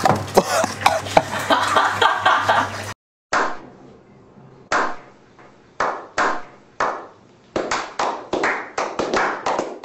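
Background music until a sudden cut about three seconds in, then a slow clap from a small group: a few single claps, spaced a second or more apart, that quicken into steady clapping.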